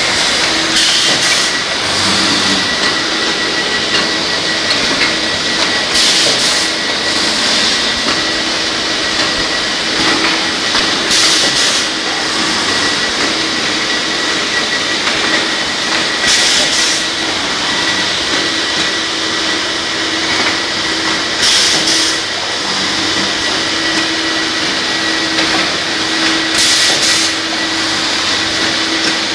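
Automatic joist drilling and doweling machine running with a steady hum, with a short burst of hiss about every five seconds, six times in all, as its cycle repeats.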